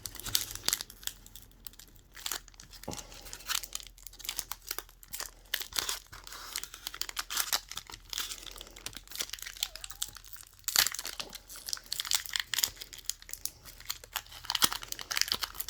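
Foil wrapper of a Pokémon booster pack crinkling and tearing as it is worked open by hand, in irregular bursts of crackles with a quieter stretch in the middle.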